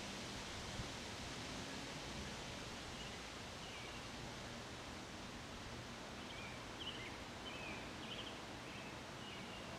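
Steady wind with rustling. A few faint, short, high chirps come in about three seconds in and again through the second half.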